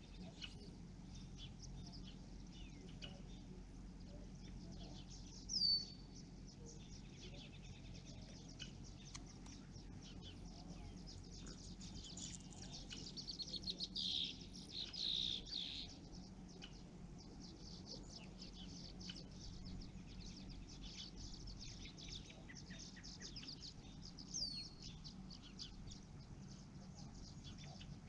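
Songbirds chirping and trilling. The chittering is busiest in the middle, and a sharp down-slurred call comes about five seconds in and again near the end.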